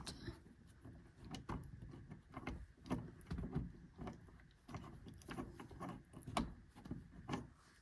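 Scattered light clicks and taps of small metal parts being handled: a replacement ignition lock barrel being tried in a car's steering-column lock housing.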